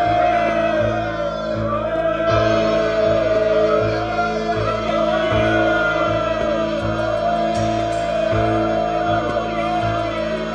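Music: a sung melody of long, wavering held notes over a steady, repeating bass line.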